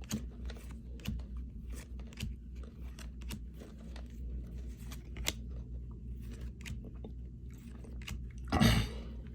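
Trading cards being flipped through and handled by hand: a run of small, irregular clicks and crisp snaps as card edges slide and tap. A brief louder sound comes near the end.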